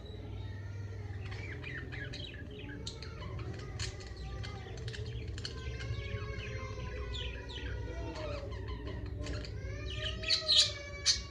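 Budgerigars chattering and warbling: a steady stream of quick chirps and short whistled calls over a low hum, with a few louder, sharp chirps near the end.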